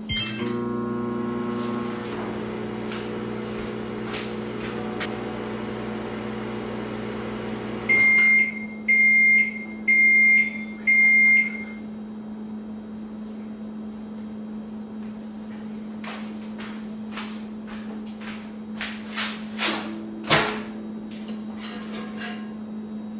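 Microwave oven started with a key beep, running with a steady electrical hum that stops about eight seconds in. It then gives four long beeps to signal the end of the heating cycle, followed by a few clicks and knocks.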